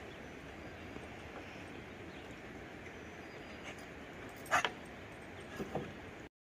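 A dog gives a short bark about four and a half seconds in, then two fainter ones near the end, over a steady outdoor hiss.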